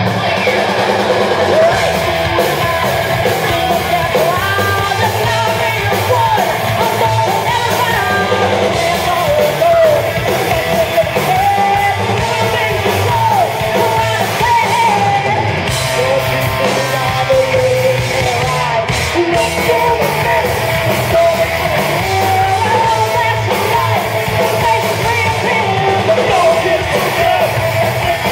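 Heavy metal band playing live, with a singer's voice belting and wailing over loud electric guitars, bass and drums.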